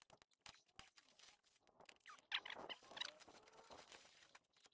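Faint rustling and crackling of dry twigs and leaves with scattered small snaps, louder for about a second starting around two seconds in: dead branches being handled and cleared inside a bush.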